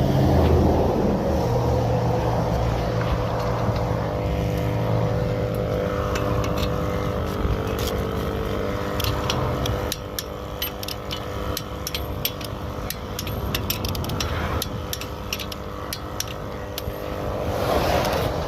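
Highway traffic passing, with a rushing swell near the start and another near the end, over a steady engine hum. A run of sharp clicks and taps fills the second half.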